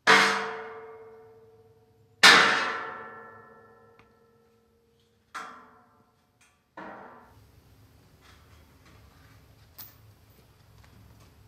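Sledgehammer striking a steel brace on a welded steel frame: two loud, ringing clangs about two seconds apart, then two lighter blows, knocking the brace loose. Faint clanks and rattles follow as the freed brace is handled.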